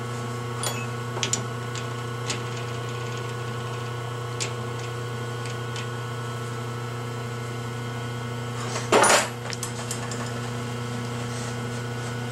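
A motorcycle starter armature being fitted into a lathe's three-jaw chuck: a few light metal clicks and knocks, then one louder half-second scrape about nine seconds in. A steady electrical hum runs underneath.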